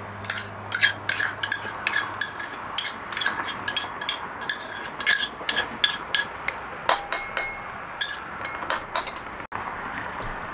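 A metal spoon scraping and tapping mayonnaise out of a stainless measuring cup into a bowl: an irregular run of quick metallic taps and clinks, with one longer ringing clink about seven seconds in.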